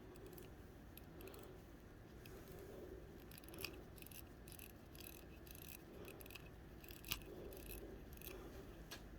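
Faint, irregular small clicks and scrapes of fingers turning a wristwatch's crown to unscrew it open, with two sharper clicks about three and a half and seven seconds in.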